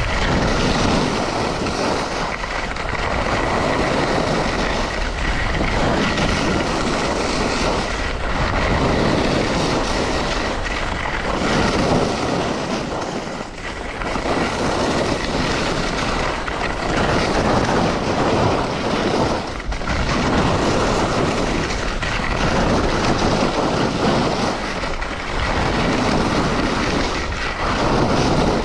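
Blizzard skis scraping and carving through packed, chopped-up piste snow, the scrape swelling and falling away with each turn, under loud wind rush on the microphone.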